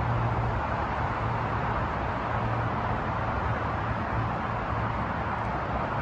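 Steady outdoor background noise: an even rumble and hiss with a low hum that swells and fades.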